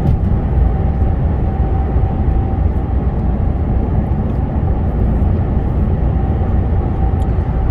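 Steady low rumble of a lorry's diesel engine and road noise, heard inside the cab while cruising.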